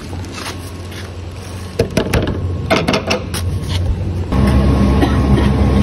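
Several sharp knocks and metal rattles on a wooden door fitted with iron bolts and handles, bunched about two to three seconds in. A little after four seconds a steady low machine hum comes in and stays.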